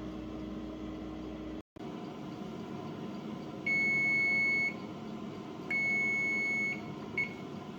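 Electronic timer of a toaster oven beeping: two steady high beeps of about a second each and a short third beep, signalling that the set cooking time is up. A low hum runs underneath.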